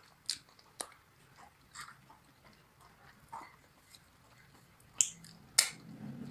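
A person chewing and lip-smacking while eating fried chicken wings in a hot spicy honey sauce: scattered short, wet smacks and clicks, the loudest a pair about five and five and a half seconds in.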